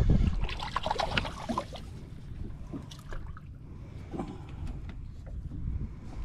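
Splashing and scattered knocks as a hooked catfish is lifted from the water and swung onto a boat deck, over low wind rumble on the microphone.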